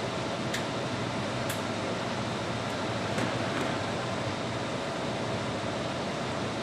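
Fiber laser marking system homing its rotary indexer, Z axis and table axis: a steady fan-like hum with a faint steady tone and a few light ticks in the first few seconds.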